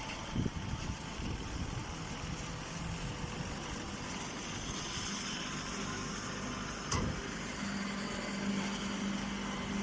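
Engine-driven homemade hay baler running steadily, with a knock about half a second in and another near seven seconds; a steady hum joins near eight seconds.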